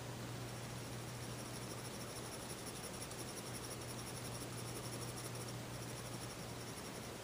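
Pencil scratching on sketchpad paper in quick back-and-forth shading strokes, over a steady low hum. A faint, high, rapidly pulsing chirr runs through it and drops out for a moment near the end.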